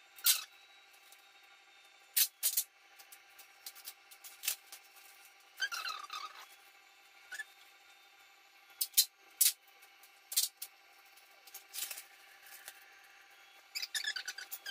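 Packing tape being pulled off its roll in short, sharp screechy rips, about ten times, some with a squeaky sliding pitch, between rubbing as the tape is pressed onto thin copper mesh. Near the end, scissors cut the tape.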